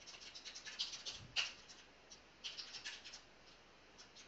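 Typing on a computer keyboard: short runs of quick, irregular key clicks with brief pauses between them, the loudest keystroke about one and a half seconds in.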